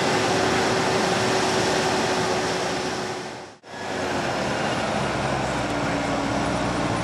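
Fendt 718 tractor engine running loud and steady. The sound drops away briefly a little past halfway through and comes back.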